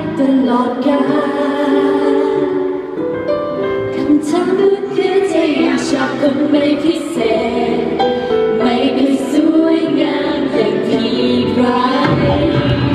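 Live pop song: women's voices singing together over instrumental accompaniment.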